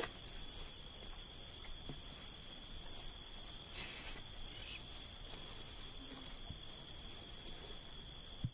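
Faint, steady insect chirring, a constant high tone with a quick regular pulsing just above it, over a low background rumble; a brief soft noise about four seconds in.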